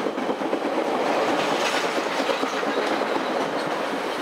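Stainless-steel bilevel commuter rail cars rolling past as the train arrives in the station: a steady rush of steel wheels on rail with light scattered clicks.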